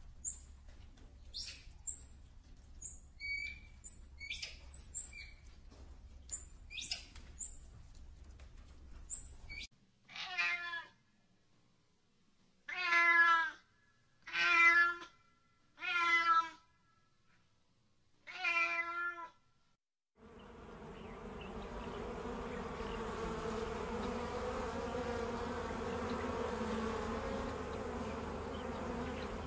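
Scattered short high chirps, then five meows from a fishing cat, each under a second long and one every second or two. About two-thirds of the way in, a steady hum sets in.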